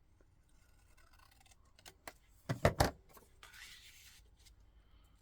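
Paper being cut down to size: a few light clicks, two loud knocks a little past halfway, then a short rasp of the cut.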